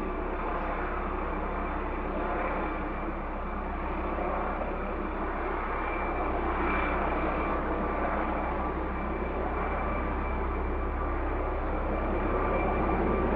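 Helicopter hovering: a steady rotor thud with engine and turbine whine, holding level with slight swells, growing a little louder near the end.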